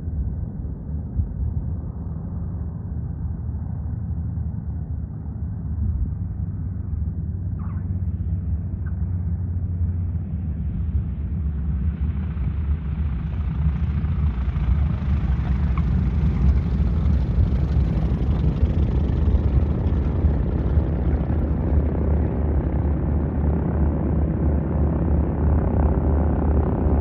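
Piston propeller aircraft engines: a steady low rumble that grows louder from about ten seconds in as a single-engine plane makes its takeoff run. Its noise is fullest around the middle, while the deep rumble of the taxiing twin-engine Douglas C-47 stays loud near the end.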